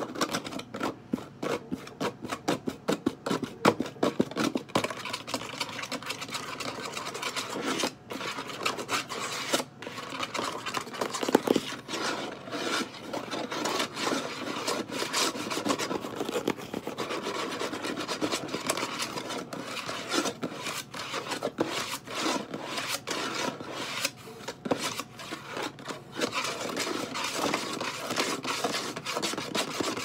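Fast, aggressive fingernail tapping and scratching close to the microphone: a dense run of quick taps over a continuous rasping scratch. The taps are most distinct in the first few seconds.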